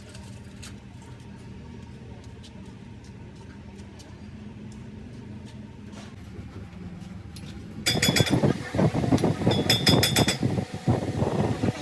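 A car engine running with a steady low hum and faint ticks. About eight seconds in, loud, irregular metallic clanking and clinking starts.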